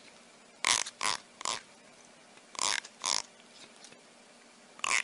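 An animal making short, breathy, noisy sounds in quick runs of two or three, about half a second apart, with pauses of about a second between runs.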